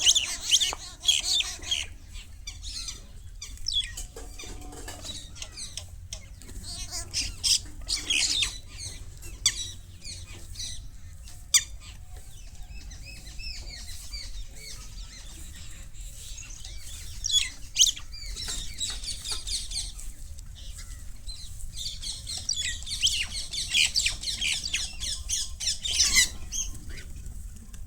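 A group of birds, common mynas among them, calling in repeated bursts of high chattering and squawking.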